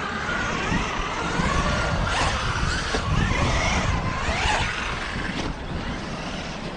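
Losi Super Baja Rey 1/6-scale brushless electric RC truck's motor whining, its pitch gliding up and down several times as the truck speeds up and slows. A low, irregular rumble runs under it.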